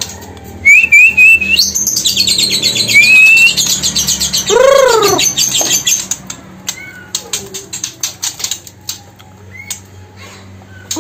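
Young white-rumped shamas calling in cages: high chirps and a fast trill in the first few seconds, a lower rising-and-falling call about five seconds in, then a run of sharp ticks.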